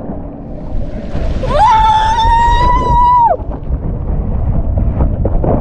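A person's high-pitched scream, held for about two seconds and dropping off at its end, over a steady rushing rumble.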